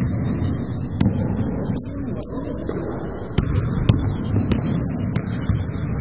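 A basketball bouncing on an indoor court floor, a series of sharp knocks, with short high sneaker squeaks as players cut and stop, over a low din of the game.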